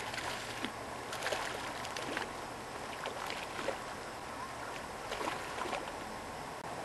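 Rustling and small knocks from a hand-held camera being jostled, scattered irregularly over a steady outdoor hiss with a faint steady high tone.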